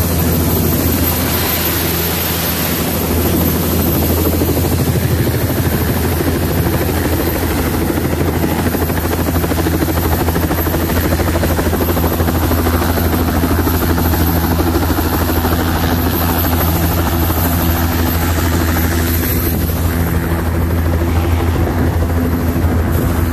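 Helicopter with a two-bladed main rotor running on the ground close by: a loud, steady drone of rotor and turbine.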